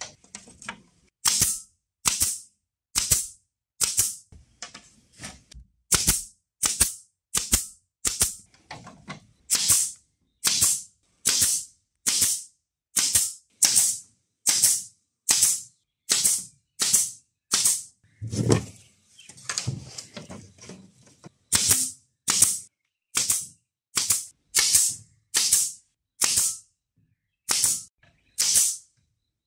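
Pneumatic nail gun firing into bamboo rails: a steady series of short, sharp hissing shots, a little more than one a second. Near two-thirds of the way through, a pause of a few seconds holds a low knock and rustling before the shots resume.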